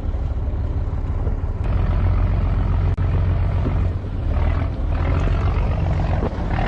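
Fishing boat's engine running with a steady low rumble, with wash and wind noise over it.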